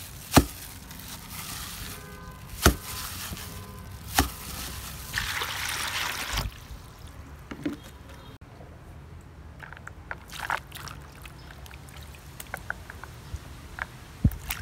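Three sharp knocks, then water poured into a plastic basin for about a second and a half, followed by faint splashing and dripping as long beans are handled in the water.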